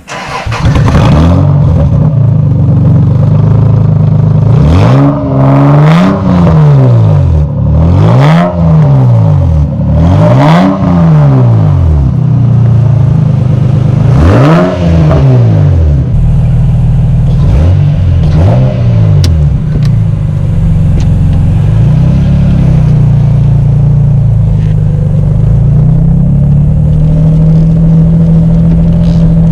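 1993 Toyota Supra's naturally aspirated 3.0-litre straight-six with an aftermarket exhaust and K&N cold air intake, revved up and down several times, each rise and fall lasting about two seconds. About two-thirds of the way through it settles into a steady drone.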